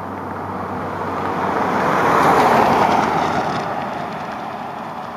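A road vehicle passing by, its noise swelling to a peak about two and a half seconds in and then fading away.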